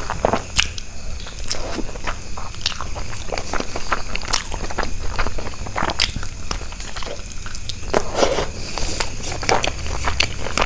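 Close-miked eating: a person biting and chewing food, heard as a string of irregular sharp clicks.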